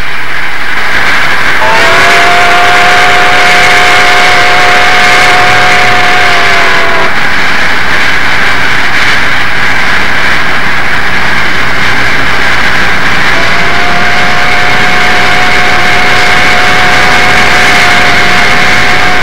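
Southern Pacific AC-11 cab forward steam locomotive sounding its chime whistle in two long blasts of several notes at once, each about five or six seconds, the first sagging slightly in pitch as it ends. Underneath is the steady noise of the locomotive working hard upgrade at full throttle.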